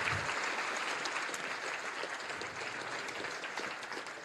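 Audience applauding, the clapping slowly dying down toward the end.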